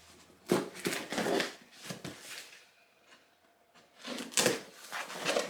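Rustling and handling of packaging being opened by hand, in irregular bursts with a short lull in the middle.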